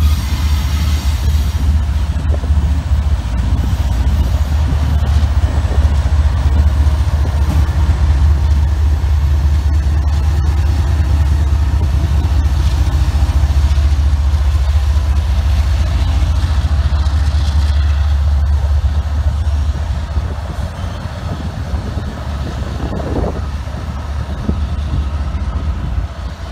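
Diesel freight locomotives running close by, a steady deep engine rumble that eases off a little after about twenty seconds.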